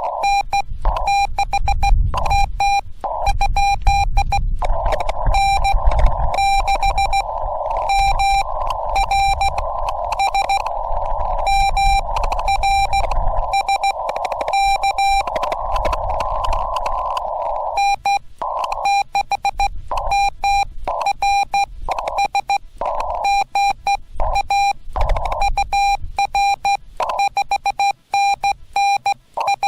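Morse code (CW) from a Yaesu FT-891 ham radio transceiver: a single tone of about 800 Hz keyed on and off in dots and dashes, over a band of radio hiss heard through the narrow CW filter. About 18 seconds in, the hiss drops out between the tones.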